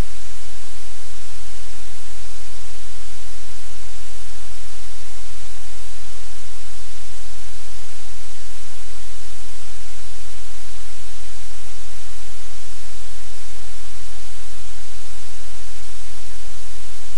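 Steady, loud hiss of static-like noise with a low hum underneath, unchanging throughout, with no distinct events.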